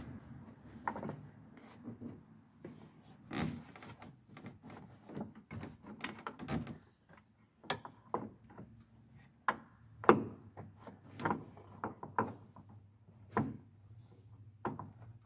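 Irregular knocks, clicks and rubbing from hand work on car parts while a clutch master cylinder is twisted and slid into place. The loudest knock comes about ten seconds in.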